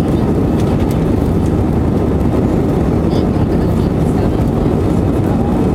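Steady engine and airflow noise inside the cabin of an Airbus A320 climbing after take-off, an even deep rush with no change in level.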